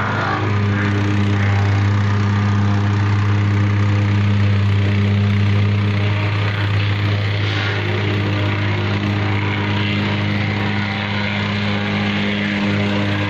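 A small engine running steadily at an even speed, with a constant low hum.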